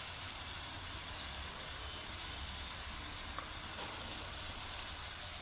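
Chopped onions frying in hot oil in a steel kadai: a steady, soft sizzling hiss with a low rumble underneath.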